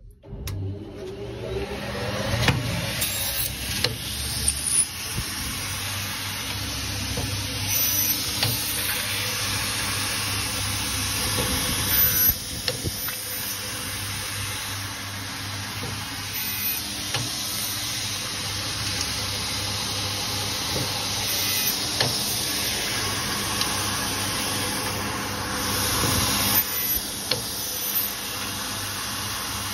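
Picture-frame moulding cutting machine switched on and running steadily, cutting frame moulding at 45 degrees. It comes up to speed about half a second in, with scattered sharp clicks and knocks over the running noise.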